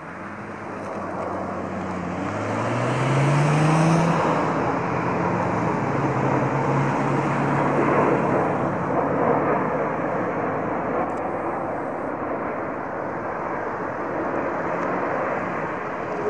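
British Airways Boeing 787 jetliner landing: a steady jet engine rush builds as the aircraft passes on final approach, loudest about four seconds in, with low engine tones sliding upward. It touches down about halfway through and the engine noise carries on steadily through the rollout.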